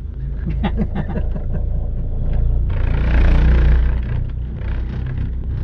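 Cable car gondola running along its cable into a station, slowing down: a steady low rumble, with a hissing rush in the middle that then fades.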